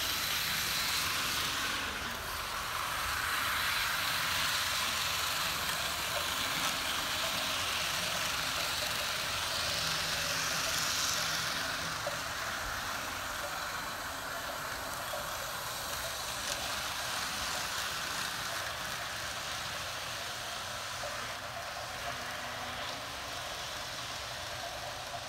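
HO scale PlayArt Shinkansen Type Zero model train running on the layout track, a steady whirring hiss of motor and wheels on rail. It swells twice as the train passes nearer, then settles lower.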